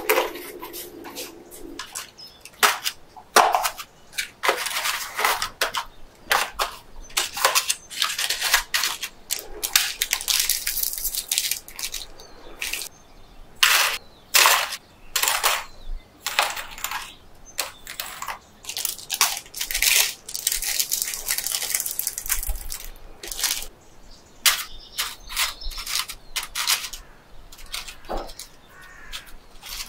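Packaged snacks and their wrappers being handled and set into a box: irregular taps and clicks, with stretches of crinkling plastic now and then.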